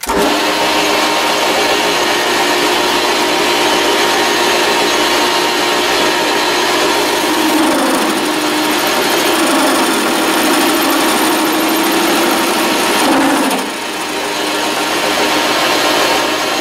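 Grizzly G0602 metal lathe starting up and running steadily under power with a loud mechanical whine. From about seven seconds in, a wavering tone comes and goes as the parting tool is fed into the spinning workpiece, a cut that was hard to get started; the sound eases briefly near the end.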